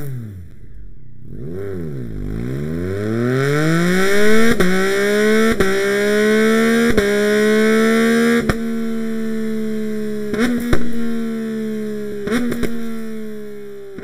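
Yamaha MT-09's crossplane inline-three engine through an Akrapovič exhaust, revving. A quick blip rises and falls, then the revs climb steadily for several seconds and hold high, with several sharp cracks along the way.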